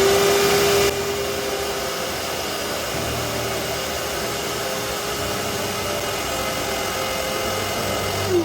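Vacuum cleaner sucking on a clogged shower drain to pull the blockage out, its motor running with a steady whine over loud rushing air, starting to wind down right at the end.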